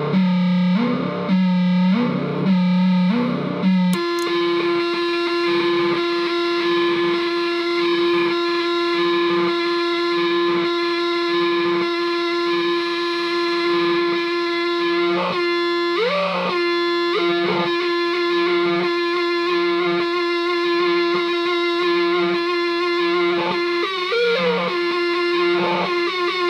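Electric guitar played through Dwarfcraft effects pedals and a Delta Labs delay, heavily distorted. For the first four seconds it pulses about once a second, then settles into a long sustained droning note. The pitch sweeps and warbles twice as the pedal's knobs are turned, once around the middle and once near the end.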